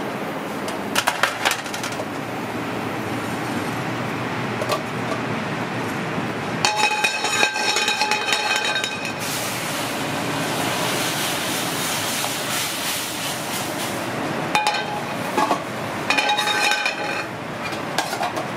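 Metal cookware clinking and ringing: a stainless sauté pan and sheet tray knocked against the steel grates of a gas range. There are two longer ringing clatters, about a third of the way through and near the end, over steady kitchen background noise.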